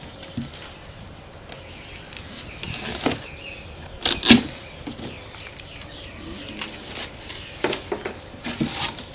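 Packing tape on a large cardboard box being slit with a blade and the top flaps pulled open: irregular cardboard scrapes, rustles and flaps, loudest in a sharp burst a little after four seconds in.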